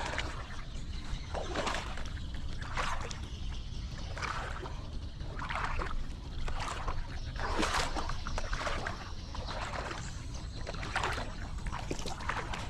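Repeated splashing and sloshing in shallow field water, irregular bursts about one every second or so.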